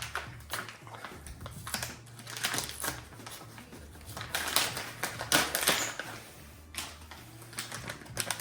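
Packaging of a motorcycle LED tail light being opened and handled: irregular clicks and rustles, with a steady low hum underneath.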